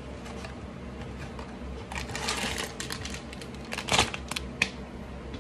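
Small cardboard box being opened by hand: scattered clicks and rustles of the flaps and paper packaging, with a sharper snap about four seconds in.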